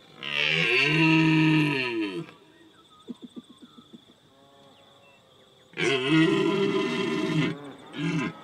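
An animal calling: two long drawn-out calls of about two seconds each, with a quick run of short grunts between them and a brief call near the end.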